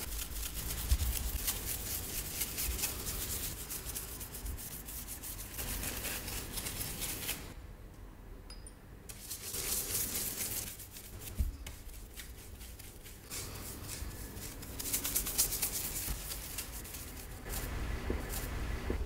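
Drawing tool scrubbing hard over paper, a dense scratchy rubbing made of quick strokes, with a short pause about seven and a half seconds in.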